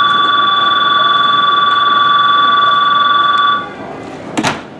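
Railway platform departure bell ringing loudly and steadily. It signals that the train at the platform is about to leave, and it cuts off about three and a half seconds in. A brief sharp burst of noise follows near the end.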